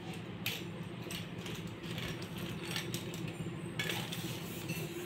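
Lightweight tripod stand being handled and folded: scattered sharp clicks and rattles from its leg sections and clamps, busier near the end, over a faint steady hum.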